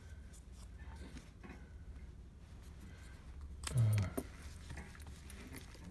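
Paper and cardboard cut-outs being handled and set down on a worktable: faint rustles and light ticks over a steady low hum. About four seconds in there is a short murmur from the person working.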